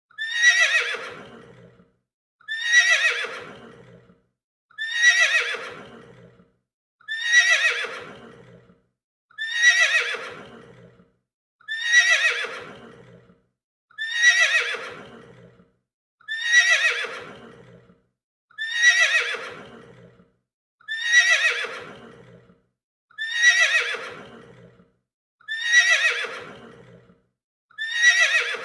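A horse whinnying, the same call repeated about every two seconds, thirteen times over. Each whinny starts high, slides down in pitch and fades out, with a short silence before the next.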